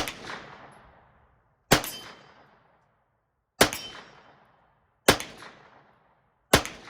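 Five single shots from a 9mm Kel-Tec Sub-2000 carbine fired semi-automatically, evenly paced about one every one and a half to two seconds, each sharp crack trailing off in a second-long echo.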